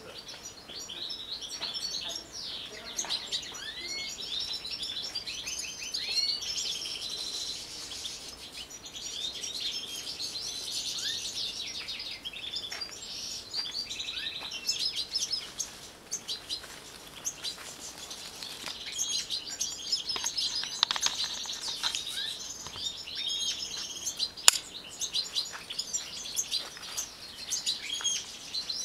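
A flock of European goldfinches twittering and chirping together, a continuous overlapping chorus of high, rapid notes. A single sharp click stands out about three-quarters of the way through.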